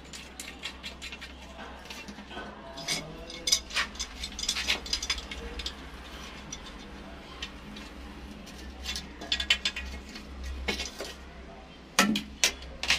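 Irregular clicks, clinks and knocks of tools and pipe fittings being handled during plumbing work, busiest about three to five seconds in and again near the end, over a low steady hum.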